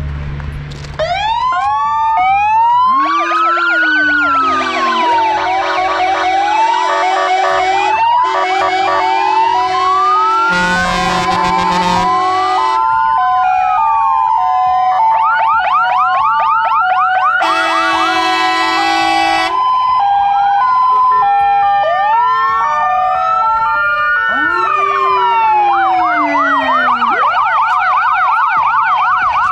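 Sirens of several fire engines sounding together after being switched on all at once. Overlapping wails sweep up and down alongside fast yelps and alternating two-tone calls, starting about a second in.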